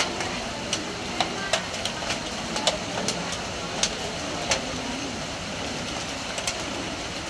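Steady heavy rain pattering on a corrugated metal roof, with irregular sharp ticks of larger drops striking the metal.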